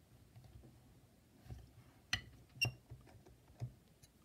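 A few faint metallic clicks from a hex key and the bolts of an aluminium motor mount clamp on a skateboard truck: four light ticks in the second half, two of them with a short ring.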